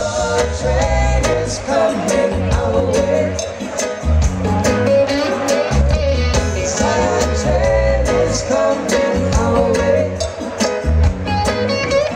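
Live reggae band playing, with electric guitar over drums and a pulsing bass line.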